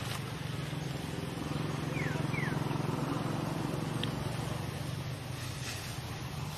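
Steady low hum of a running engine, with two short falling squeaks about two seconds in.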